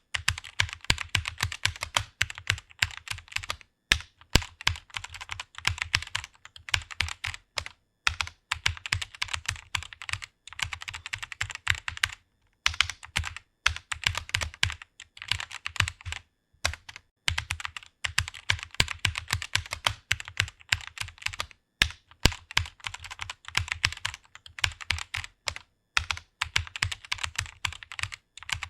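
Fast typing on a computer keyboard: a quick, continuous run of key clicks, broken by brief pauses every few seconds.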